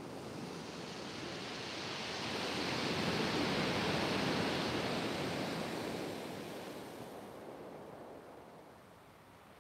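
Surf: a single wave breaking and washing up a steep shingle beach, its rush swelling to a peak about halfway through and then fading away.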